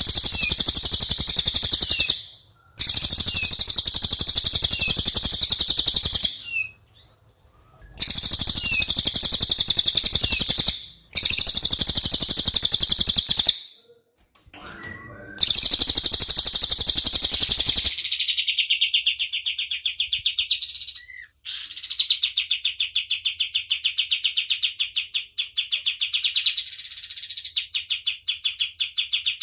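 Recorded songbird tutor song. A cililin sings in loud, high, rapid chirping phrases of two to four seconds, with short pauses between them. About eighteen seconds in, a kapas tembak takes over with a continuous fast, pulsing trill at a lower pitch.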